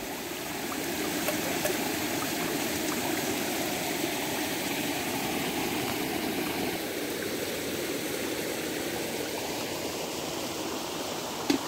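Steady rush of flowing water from a monsoon-swollen stream, with one short sharp knock near the end.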